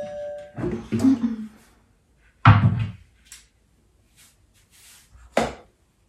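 A short electronic beep from a Silvercrest Monsieur Cuisine kitchen machine, then the plastic lid of its steel mixing bowl being unlocked, lifted off and set down. The handling makes a few separate clunks; the loudest is about two and a half seconds in, and a smaller one comes near the end.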